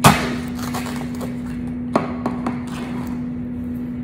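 Tube of crisps being opened: a sharp pop and tear as the seal comes off, then light scattered clicks and rustles with one sharper click about two seconds in. A steady low hum runs underneath.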